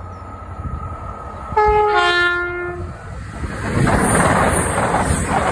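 A CrossCountry Voyager diesel multiple unit sounds its two-tone horn about one and a half seconds in, a higher note followed by a lower, longer one. From about three and a half seconds it passes close by with a loud rushing noise.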